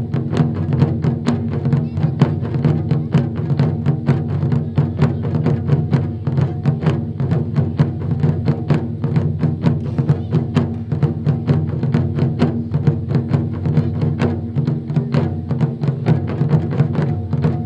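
Japanese taiko ensemble of several players beating barrel-shaped nagado-daiko drums with sticks: a dense, even rhythm of many strikes a second over the drums' deep, sustained ring.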